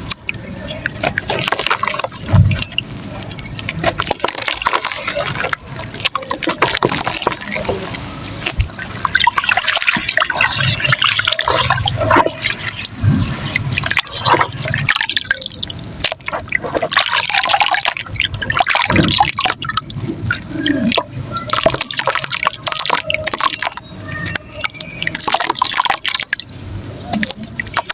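Chunks of soft mud and dirt crumbling in water and being worked into a wet paste: a dense, irregular run of small wet crackles and clicks.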